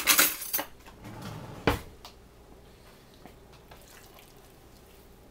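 Metal cutlery clattering in a kitchen drawer as a butter knife is picked out, then a single sharp knock a little under two seconds in.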